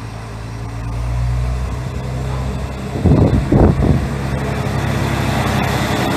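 Diesel railcar of the Mizushima Rinkai Railway's MRT300 series pulling slowly into the platform, its engine running with a steady low drone that grows a little louder. About three seconds in, a brief loud buffeting as the front of the car passes close by.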